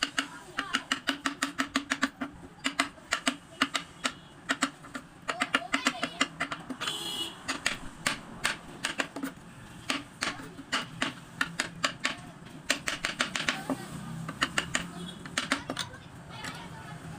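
Quick irregular runs of sharp taps and clicks, several a second, from woodworking, with a brief scrape about seven seconds in.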